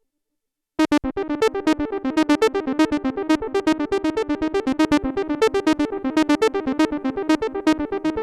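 Arturia MatrixBrute analog synthesizer playing a fast sequenced run of short pitched notes, about eight a second. It starts after about a second of silence.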